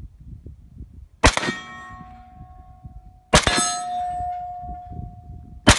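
Three single rifle shots from an AK-pattern rifle, about two seconds apart. Each is followed at once by a steel target ringing and fading over a second or two, the sign of a hit.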